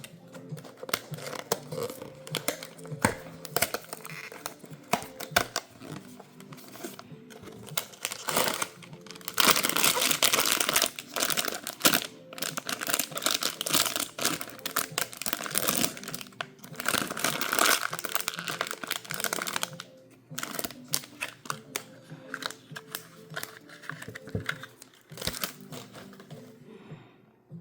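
Packaging being handled: crinkling and rustling with many small clicks, with louder bursts of crinkling about ten seconds in and again around seventeen seconds, over soft background music.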